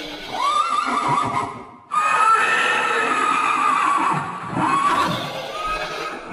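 Dinosaur sound-effect calls: a high, wavering cry of about a second and a half, then after a brief break a longer one lasting about three seconds.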